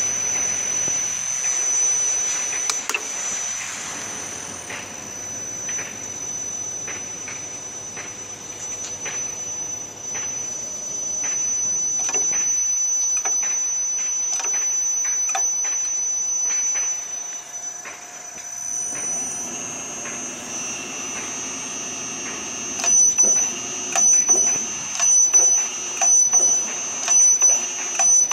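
PTD-32 drill/tapping machine running, its 2-horsepower motor driven through an inverter, with a steady high whine and scattered short clicks. Over the last few seconds the sound swells and falls about once a second.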